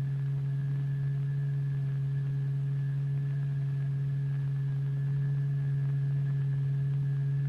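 Steady low electronic tone with faint higher overtones, holding one pitch throughout: the vibration tone driving the cymatics experiment.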